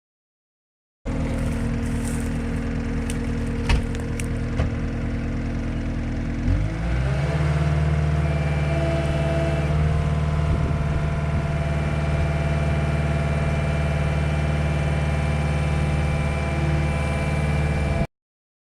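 Heavy-equipment diesel engine running steadily, with a few sharp metallic clanks in the first few seconds; about six and a half seconds in its note shifts lower and it gets a little louder.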